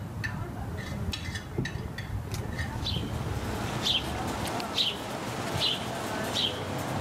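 A bird giving a short, high, falling chirp over and over, a little under one a second, growing clearer about three seconds in.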